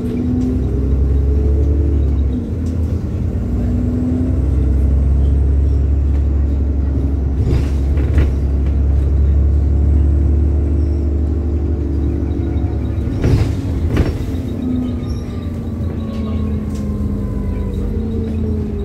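Diesel engine of a bus running under load, a heavy low rumble whose note rises and falls as it pulls. Sharp knocks or rattles come twice, about eight and fourteen seconds in.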